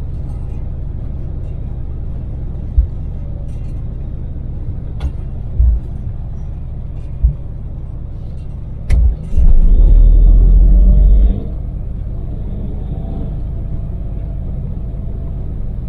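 Daewoo Damas mini van cruising on an expressway, heard inside the cab: a steady low hum of its three-cylinder LPG engine and road noise. Several short low thumps come through, and about halfway in a loud low rumble lasts nearly two seconds.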